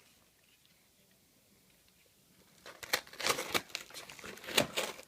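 Packaging being torn open and crinkled. It starts about two and a half seconds in, as irregular crackling rustles.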